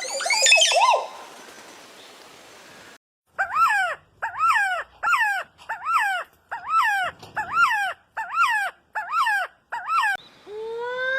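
Bird calls from several clips. A quick burst of chirps opens it; after a short gap one bird repeats the same call about ten times, roughly one and a half a second, each call rising and then falling in pitch. Near the end a different bird's calls begin, each sweeping upward.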